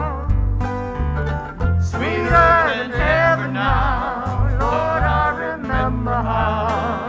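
Instrumental break by an acoustic string band: mandolin and acoustic guitar over upright bass notes, with a lead melody line with vibrato coming in about two seconds in.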